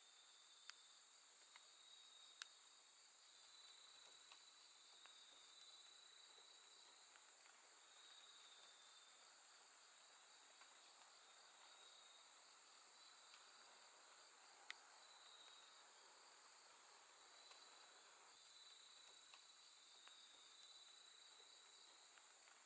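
A faint night chorus of crickets and other grass insects: a steady high trill, with lower chirps coming and going and short bursts of very high pulsed buzzing twice. A few faint clicks are also heard.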